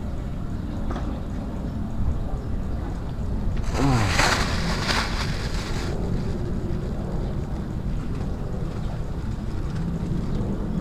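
Steady low rumble of wind buffeting the microphone. Around four seconds in comes about two seconds of crinkling and rustling from a plastic bag being handled.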